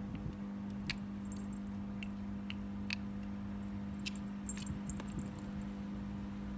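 A small bell on a kitten's collar tinkling in scattered, irregular ticks as the kitten swats and shifts about, over a steady low hum.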